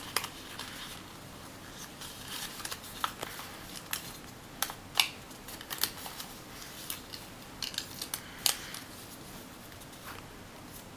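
A sheet of origami paper being folded by hand, with scattered crisp crackles and taps as a flap is lifted up into a diamond shape and creased flat.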